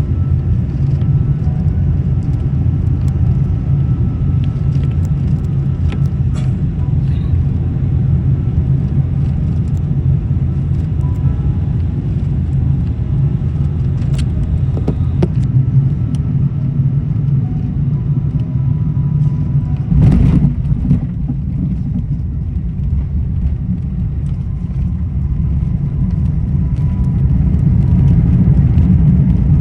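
Steady low rumble of a Singapore Airlines Airbus A380 on the ground after landing, with a brief louder rush of noise about twenty seconds in.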